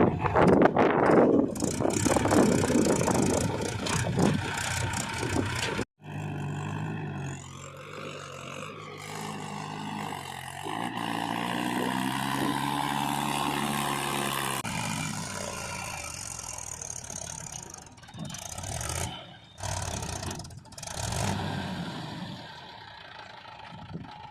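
Diesel engines of heavy earthmoving machinery running, loud and clattering at first. After an abrupt cut, an engine note rises and falls in pitch as it is worked.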